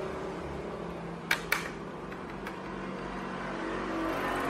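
Two sharp clicks of laptop keyboard keys being pressed a quarter second apart, then a fainter third click, as the freshly refitted keys are tested. A steady low hum runs underneath.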